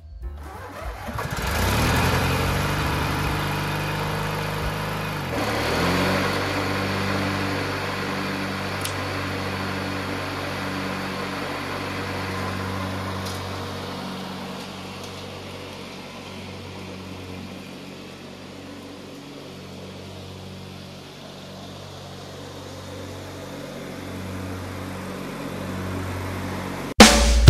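Lawnmower engine starting about half a second in and rising in pitch, then running steadily, growing fainter for a while and a little louder again near the end.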